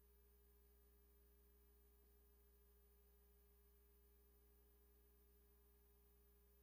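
Near silence: only a faint, steady electrical hum in the recording.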